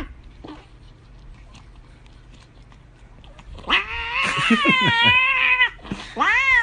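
Domestic cat yowling: quiet at first, then one loud, drawn-out wail of about two seconds a little past halfway, and a shorter rising-and-falling meow at the end. The cat is grabbing at a lickable squeeze-tube treat held out to it.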